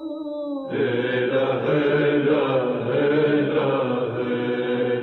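Wordless sung vocal 'aah' and humming, with no instruments, in the style of a nasheed background. A few held notes give way about two-thirds of a second in to a fuller, layered group of voices sustaining long tones.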